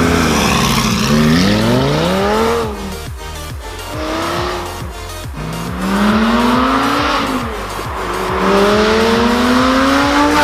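Car engine accelerating hard three times, its pitch rising in each run, over background music with a steady beat.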